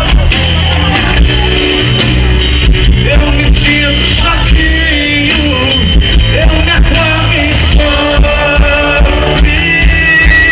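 Live sertanejo band music played loud: a singer over a drum kit keeping a steady beat, recorded from among the audience.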